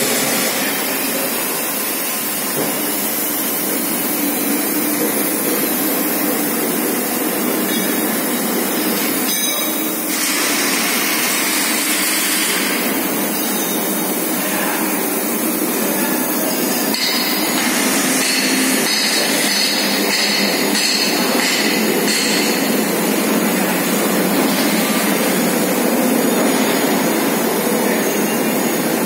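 Continuous machinery noise of a railway bogie assembly shop, with occasional metallic knocks.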